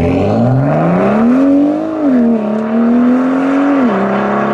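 BMW M2's turbocharged straight-six accelerating hard away, its revs climbing steadily for about two seconds. The revs dip briefly, hold and creep up again, then drop a second time near the end.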